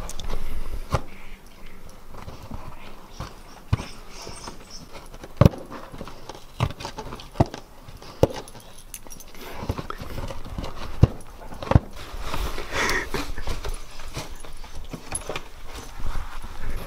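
Siberian husky pawing and biting at a cardboard box: irregular sharp knocks and scrapes of claws and teeth on the cardboard.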